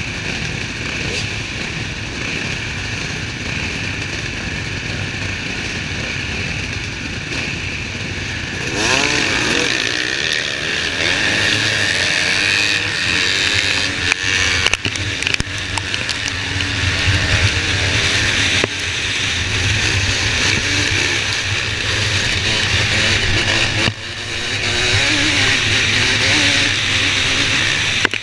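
A pack of motocross bikes running on the start line, then accelerating away together about nine seconds in, the nearest bike's engine revving hard with its pitch rising. Near the end the engine drops off for a moment and then picks up again.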